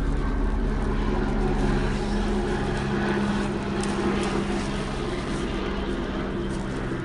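A motor vehicle engine idling steadily, a constant low hum. A few brief crinkles of paper and bubble wrap being torn about four seconds in.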